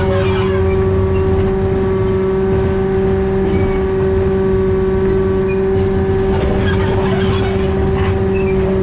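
Diesel-hydraulic narrow-gauge locomotive under way, its diesel engine droning steadily with a constant high hum, and brief rattles now and then.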